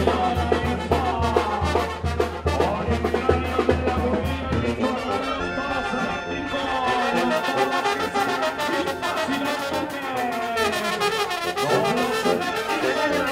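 Live Mexican banda (brass band) playing: trumpets and trombones carry the melody over an even, pulsing low bass line. The bass pulse drops out about five seconds in while the horns play on.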